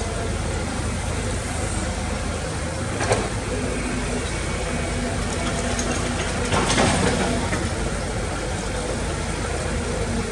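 Heavy diesel engine of earthmoving machinery running steadily. A sharp knock comes about three seconds in, and a louder, noisier clatter lasts about a second near seven seconds.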